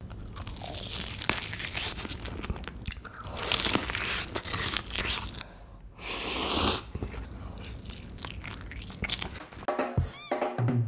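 Close-miked biting and crunchy chewing of food: a dense run of crisp crackles and bites, with one louder crunchy burst about six seconds in. Music starts near the end.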